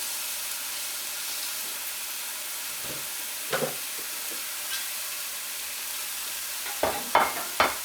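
Chicken and freshly added vegetables (beans, tomatoes, onions, carrots) sizzling in hot oil in a pan, a steady frying hiss. Short knocks of the stirring utensil come about three and a half seconds in and a few more near the end.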